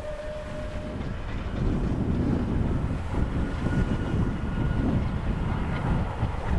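Steam locomotive 34067 Tangmere, a three-cylinder Bulleid Battle of Britain class Pacific, working hard with a train. Its whistle sounds a steady note that cuts off about a second in, then the exhaust and running rumble of the engine and train grow louder.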